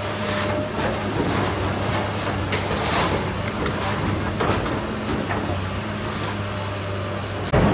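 Kobelco hydraulic excavator's diesel engine running steadily as it demolishes a building, with scattered crunches and cracks of breaking debris, a few of them about two and a half to four and a half seconds in.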